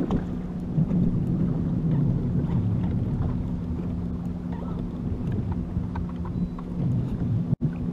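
Wind buffeting the microphone with a low rumble, over a steady low electric hum from the boat's bow-mounted trolling motor.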